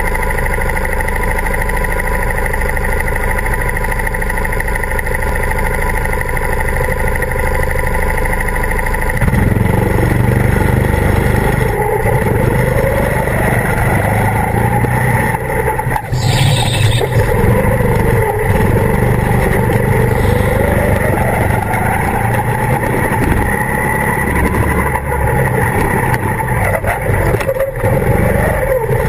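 Go-kart engines idling steadily, then about nine seconds in the onboard kart's engine comes under load and runs hard as the kart laps the track, its pitch rising and falling through the corners. A brief hiss cuts in around sixteen seconds.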